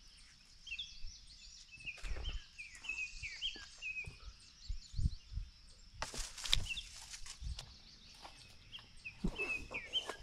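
Footsteps and branches brushing past as someone pushes through dense undergrowth, with a loud rustle of leaves and twigs about six seconds in. Small birds chirp repeatedly throughout.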